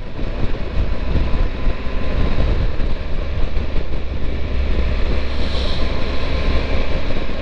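Steady wind rushing over a helmet-mounted camera's microphone while riding a Triumph Tiger 1200 motorcycle on a wet road, with its engine and tyre noise underneath. The sound cuts in suddenly at the start, with heavy low rumble.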